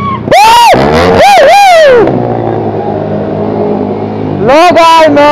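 Sport motorcycle engines revved hard in quick blips, pitch shooting up and dropping several times in the first two seconds. After a lower running stretch they rev again near the end, held high for about a second.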